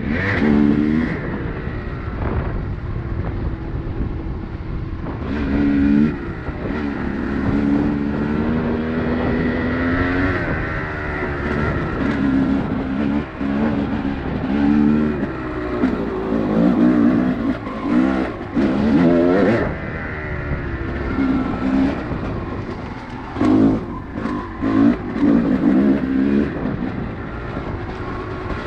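Off-road vehicle engine running on a trail, its pitch rising and falling again and again as the throttle is opened and eased off.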